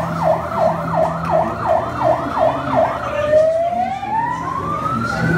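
Fire engine siren sounding a fast rising-and-falling yelp, about two and a half sweeps a second. About three seconds in it changes to a slow wail that climbs steadily and starts to fall at the very end.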